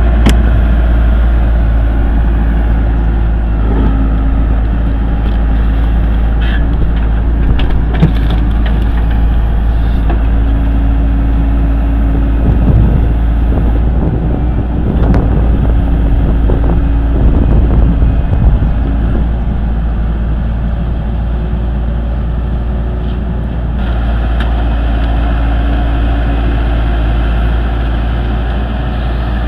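Heavy machinery engine running steadily under load, with scattered knocks and clanks.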